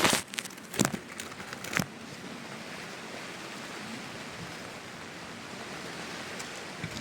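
Steady hiss of rain, with three sharp knocks of something hard being handled in the first two seconds, the first the loudest.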